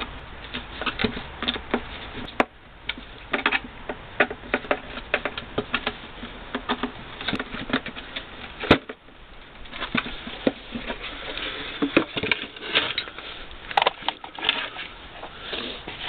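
Hand screwdriver driving self-tapping flanged screws into a plastic heater blower housing: a string of irregular small clicks and ticks from the screws, the tool and the plastic.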